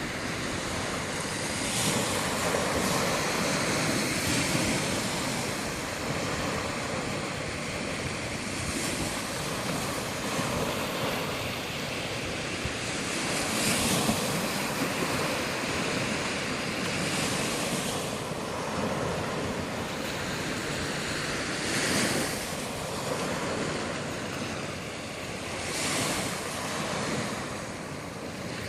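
Sea waves breaking on a beach: a steady wash of surf that swells with each breaking wave every few seconds and then ebbs.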